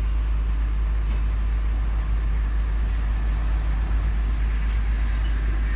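Heavy diesel machinery running steadily, a constant deep rumble.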